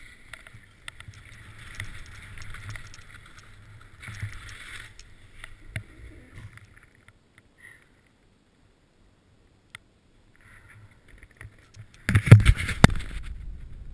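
Skis swishing and scraping over snow, picked up by a body-worn action camera. It fades out for a few seconds midway, then near the end a short loud burst of knocks and rubbing hits the camera as it tilts over.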